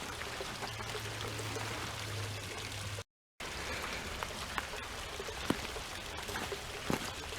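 Steady splashing of a small waterfall trickling down a granite rock face into a pool, with scattered small splashes and clicks in the second half. The sound drops out briefly about three seconds in.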